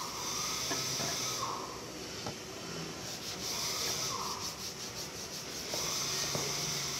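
Sandpaper rubbed by hand along a planed wooden board in repeated back-and-forth strokes, a swishing rub with each pass.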